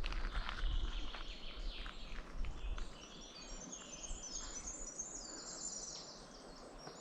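Small birds singing: high chirps and trills from several birds, clearest after the first three seconds. Over the first three seconds there are also scattered knocks and rustles as the walking stops.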